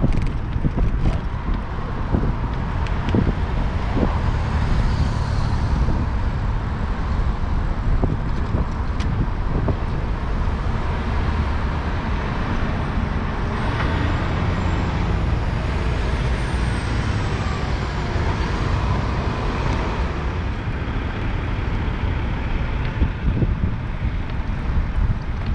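City street traffic, cars and trucks passing, heard from a moving bicycle, over a steady low rumble. A faint high whine rises and falls in pitch around the middle.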